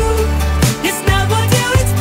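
Background pop music with a steady beat and deep bass notes.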